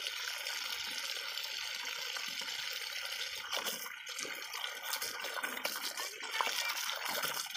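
A thin jet of water hissing steadily from a leak in a black plastic pipe. From about halfway through, the spray turns into irregular splashing and spattering as a dog bites and laps at the jet.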